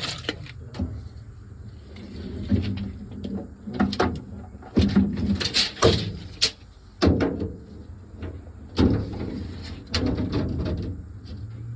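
Irregular knocks, bumps and short scrapes of timber and tools being handled while a toolbox shelf is built, over a steady low hum.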